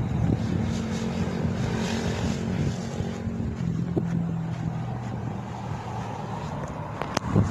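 A small engine running steadily, its pitch shifting about halfway through, with wind buffeting the microphone and a sharp click near the end.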